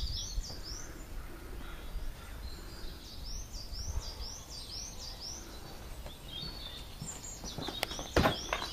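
A small bird singing short phrases of quick, repeated high chirps three times, over a low, steady outdoor background noise. A couple of sharp thumps near the end.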